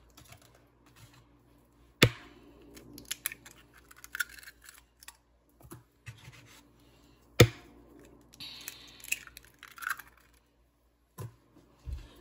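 Raw eggs being cracked into a plastic container: two sharp cracks, about two seconds in and again about five seconds later, each followed by light crackling and small clicks as the shell is pulled apart.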